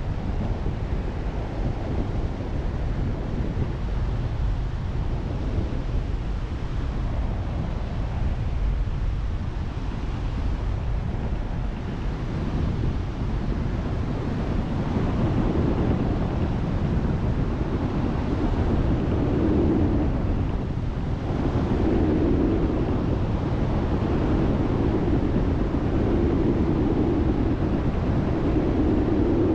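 Single-engine Cessna's engine drone and rushing airflow in the cabin on approach to land, steady and noisy, growing a little louder about halfway through.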